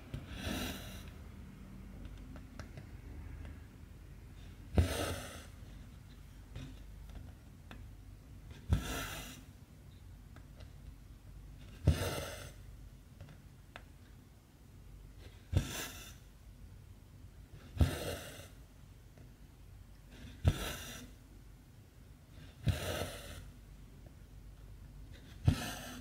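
A cross-stitch needle punches through stamped 14-count fabric with a sharp tick, and each stitch ends with the cotton thread drawn through in a short rasping swish. This repeats about nine times, one stitch every two to four seconds.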